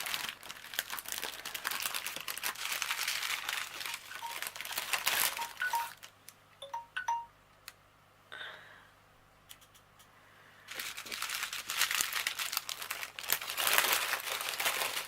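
Small plastic bags of diamond painting drills crinkling and rustling as they are handled and packed back into their bag, with a few light ticks. The crinkling stops for a few seconds in the middle and then starts again.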